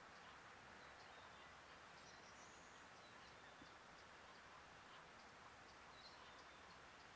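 Near silence: faint outdoor ambience with a few brief, faint high bird chirps scattered through it.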